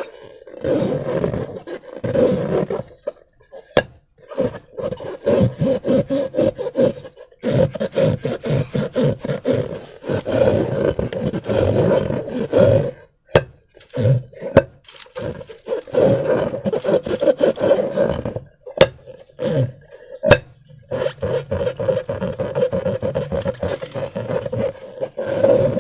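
Rubber balloons and slime being squeezed and rubbed in repeated stretches of a second or two, broken by short pauses and a few sharp clicks.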